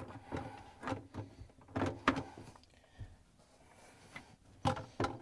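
Hard plastic dishwasher parts, the water supply tube and its fitting, handled and pressed onto the sump: a series of sharp clicks and knocks with some scraping, the loudest pair about two seconds in and another pair near the end.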